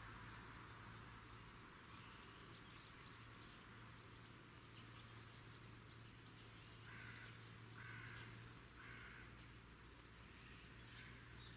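Faint outdoor nature sound: a bird gives three short calls about a second apart, over steady hiss, a low steady hum and a few faint high chirps.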